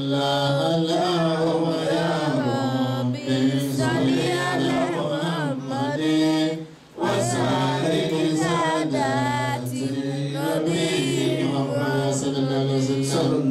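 A man chanting a religious recitation into a microphone, in long melodic held notes, with one short break for breath about seven seconds in.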